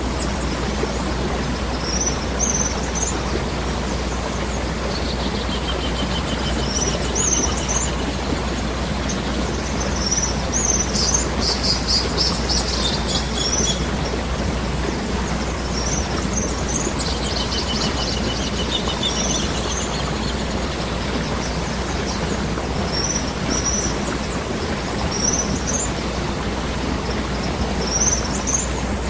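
Waterfall with a steady rush of falling, running water. Birds chirp over it every couple of seconds, with a longer trilling song twice.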